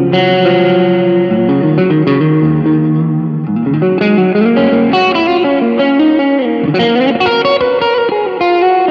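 Electric guitar played through an M-VAVE Tank-G multi-effects pedal: a lead line of held single notes with slides, breaking into faster picked runs from about four seconds in.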